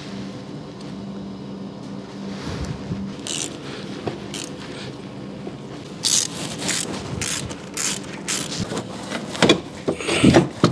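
Irregular clinks and knocks of hand tools and metal engine parts as the top end of a snowmobile's two-stroke engine is put back together. They come thicker and louder in the last few seconds, over a steady low hum that dies away about three seconds in.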